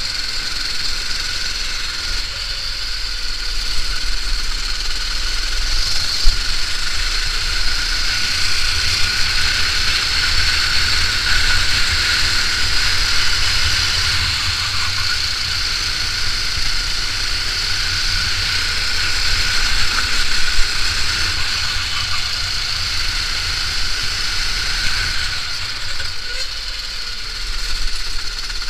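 Kart engine running continuously under racing load, heard from a camera mounted on the Sodi kart itself: a steady drone that swells and eases a little through the corners.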